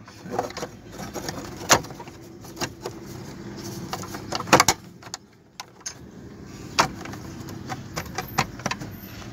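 Hand work on a steering column: scattered sharp clicks and knocks as cover and bracket parts are handled and fitted, the loudest pair about four and a half seconds in.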